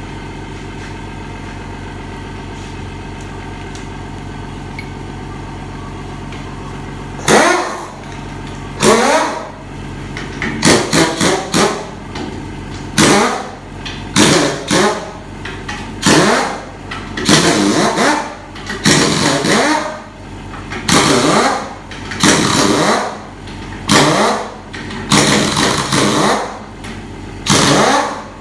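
A steady hum, then a motor run in repeated short bursts, about one a second, each starting sharply and falling in pitch as it winds down.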